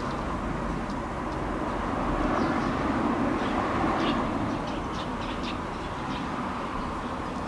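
Steady low rumble of distant vehicle traffic, swelling a little a couple of seconds in, with a few faint high chirps in the middle.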